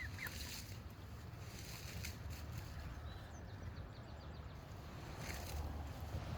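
Steady low rumble of wind on the microphone, with a few brief faint high chirps.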